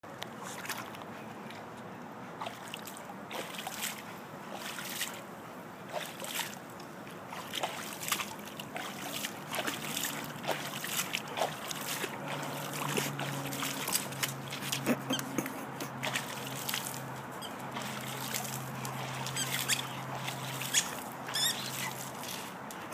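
Pool water splashing and sloshing in repeated short bursts as a Golden Retriever paws and snaps at the surface from the pool edge. A low steady hum sits under it through the second half.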